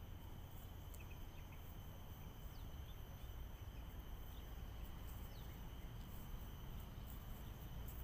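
Insects droning steadily with a constant high-pitched tone, over a low rumble, with a few faint short chirps.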